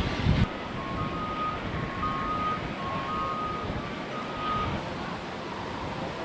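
Wind buffets the microphone until a sharp cut just after the start. Then steady outdoor noise with a repeating beep that alternates between two close pitches, about two beeps a second, typical of a construction vehicle's reversing alarm. The beeping stops about three-quarters through.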